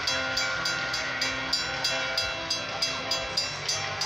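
Railroad crossing bell ringing in steady strikes, about three a second, while a Metra bilevel commuter train rumbles past through the crossing.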